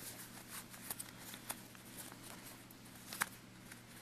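Faint rustling and small ticks of a little piece of cotton fabric being worked between the fingers as it is turned right side out, with the sharpest tick about three seconds in. A faint steady low hum runs underneath.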